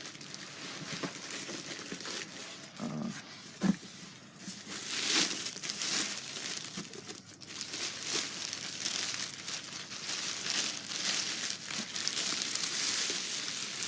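Packaging crinkling and rustling in irregular bursts as a mask is unwrapped and handled.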